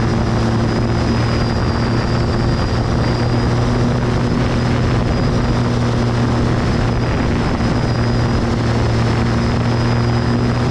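Light aircraft's piston engine and propeller running at a steady cruise: a constant drone with a thin high whine over it and a rush of noise.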